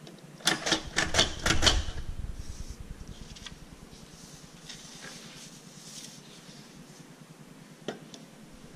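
Quick run of sharp knocks, about seven in just over a second, as a steel canister is rapped against the paper on a wooden tabletop, then faint scattered taps and a single knock near the end as it is set down.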